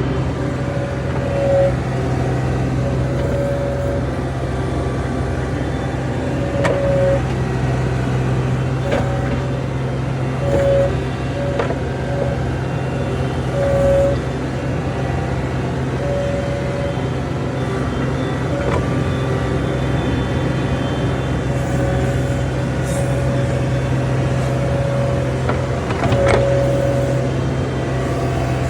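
John Deere 250 skid steer's diesel engine running steadily, with brief higher whines coming and going and a few sharp knocks as the machine works.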